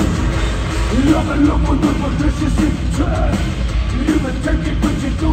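Industrial metal band playing live and loud: distorted electric guitars over heavy drums and bass, with no break in the playing, as heard by a phone in the crowd.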